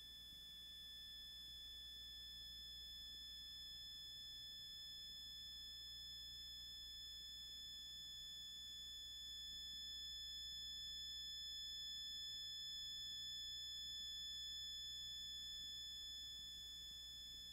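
Faint, sustained high electronic tone from 1960s analog tape-studio electronic music, held unchanging over light tape hiss and low hum and swelling slightly in the middle: the almost inaudible passage of long sounds that follows the piece's loud opening.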